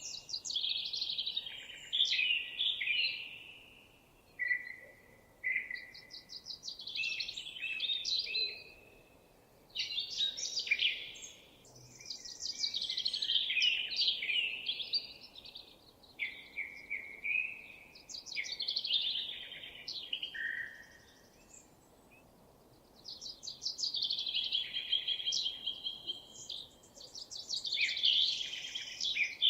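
Songbird singing phrases of rapid trills and whistled glides, each lasting two to four seconds, with short pauses between them, over a faint outdoor background hiss.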